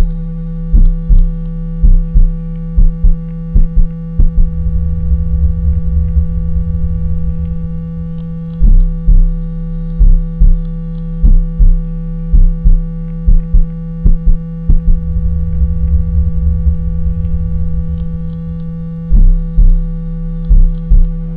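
Synthetic water-eject cleaning tone for earbuds: a loud steady low hum with overtones and rapid low bass pulses, about two a second. Twice the pulses give way to a steady low buzz for about four seconds.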